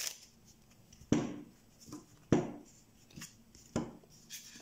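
Neapolitan playing cards being dealt onto a cloth-covered table: about six sharp slaps and taps, irregularly spaced, the loudest about one second and two and a half seconds in.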